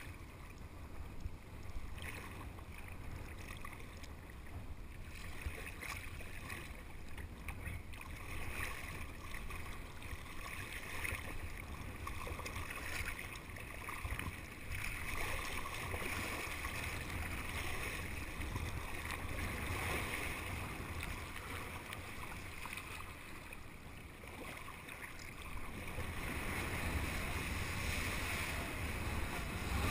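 Water sloshing and splashing around an action camera at the sea surface, with wind noise on the microphone; it grows louder over the last few seconds.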